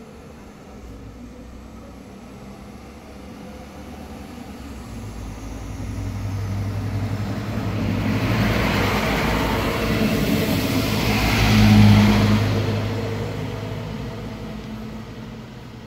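BRB Alstom Coradia LINT diesel railcar passing close by. Its diesel engine hum and the rush of its wheels on the rails build up, are loudest about twelve seconds in, then fade as it runs away.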